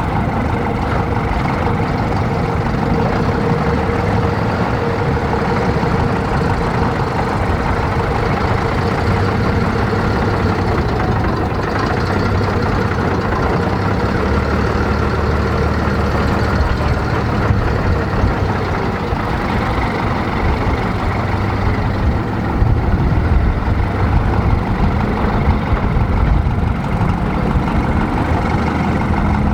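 Engines of heavy military vehicles running as they move around, a steady low rumble that grows a little louder a little past two-thirds of the way through.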